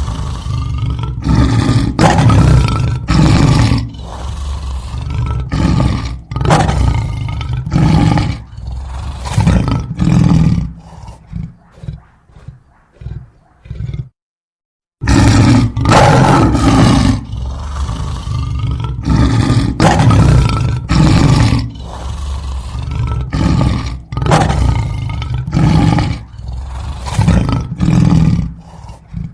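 A big cat roaring: a series of loud, deep roars that trail off into shorter, fainter grunts. After a second of dead silence the series starts again loud.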